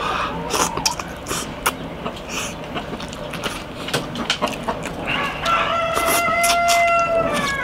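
A rooster crowing once, about five seconds in: a long held call that falls away in pitch at the end. Under it and before it, eating sounds with small clicks of chopsticks against a bowl.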